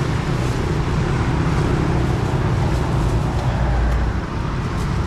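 Steady roadside traffic noise with a motor vehicle engine running close by, a low, even hum under a wash of street noise.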